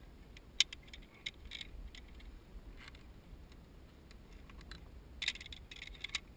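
Metal clicks and clinks of carabiners and a zip-line pulley trolley being handled on a steel cable: a few sharp single clicks, the loudest about half a second in, then a cluster of jangling clinks near the end.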